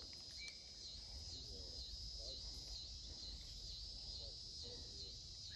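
Insects trilling in a steady, faint chorus, the high buzz pulsing about twice a second.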